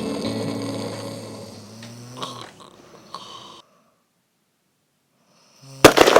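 Background music fades out into a short silence, then a man's loud, rattling snore cuts in near the end.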